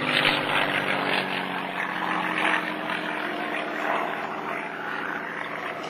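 Messerschmitt Me 109 G-10 fighter flying past, its propeller and piston engine running steadily. The pitch sinks slightly and the sound fades as the plane moves away.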